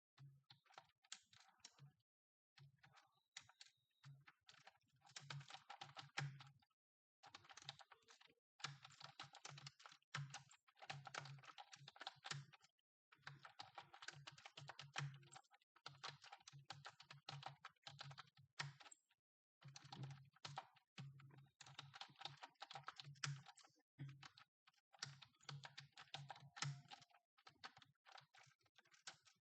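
Fast typing on a computer keyboard: quick runs of keystrokes, each run lasting a few seconds, broken by short pauses.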